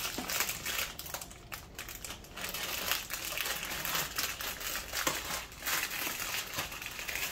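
Clear plastic bag of caramel popcorn crinkling as it is handled and folded into its paper container, an irregular run of crackles.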